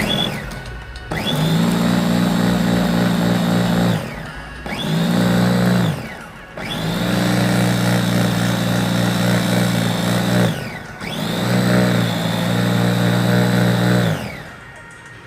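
Electric stainless-steel meat blender's motor switched on and off in four runs of about two to four seconds each, every run winding up to a steady whine and spinning down again, as it blends avocado into juice.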